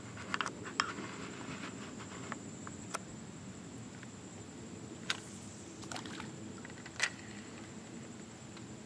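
Quiet outdoor ambience by a creek: a steady low hiss and a thin, steady high whine, broken by a few short sharp clicks, the loudest about seven seconds in.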